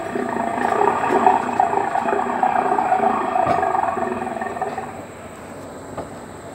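A recorded dinosaur roar, one long rough growl, played at a long-necked dinosaur figure. It fades away about five seconds in.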